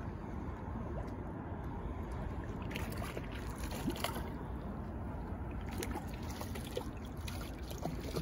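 A hooked mackerel splashing at the water's surface as it is reeled in close to the shore. The splashes come in short, irregular bursts from about three seconds in, over a steady background rush.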